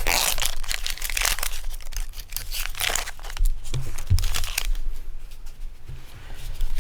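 Foil Pokémon booster pack wrapper being torn open and crinkled, dense crackling in the first second then scattered crinkles.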